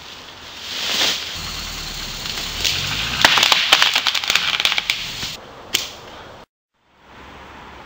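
Crunching and snapping of dry leaves and sticks under a car driving over the forest floor, with a low rumble at first and a dense run of sharp cracks in the middle. The sound drops out for a moment near the end.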